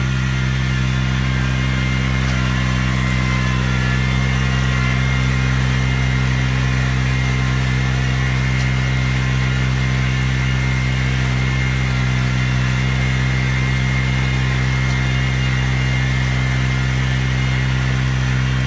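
A farm machine's engine running steadily at one speed, with a thin high whine above the low engine note.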